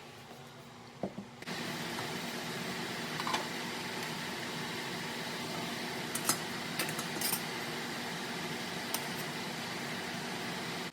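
A steady mechanical whir that starts suddenly about a second and a half in, with a few light clinks over it.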